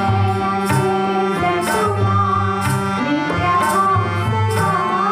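Tabla played in a steady rhythm, accompanying women singing a song.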